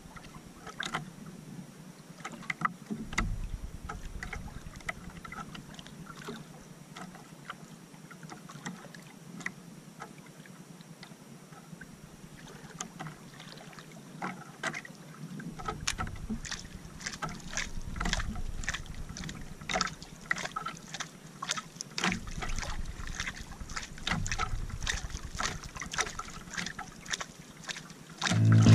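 Water lapping and slapping against a small wooden outrigger canoe, with gusts of wind on the microphone. Short clicks and ticks come thicker in the second half.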